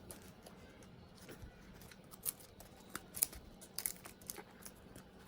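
Faint handling of parcel packaging: scattered light clicks and rustles, with a few sharper ticks about two to four seconds in.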